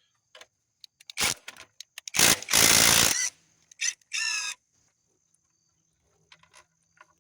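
Power tool run in a few short bursts on the Kia Forte's intake manifold bolts, the longest about a second, ending in a short whine.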